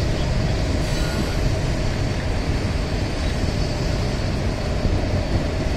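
Passenger train at a station platform: a steady rumble with a faint, even hum over it.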